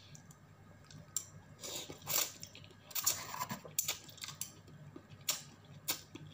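A person slurping noodles and chewing with the mouth close to the microphone: a series of short, irregular wet slurps and smacks.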